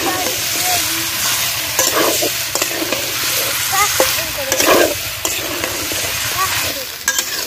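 Chicken pieces sizzling in oil in a kadai while a spatula stirs them, with irregular scrapes against the pan.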